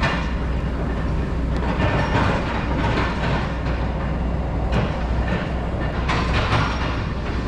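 Steady, loud rumble of passing traffic in the city, with some rattling.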